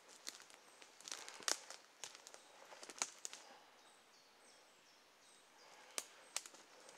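Footsteps crunching through wet leaf litter and dead sticks on a woodland floor, with irregular sharp twig cracks, the loudest about a second and a half in, at three seconds and around six seconds.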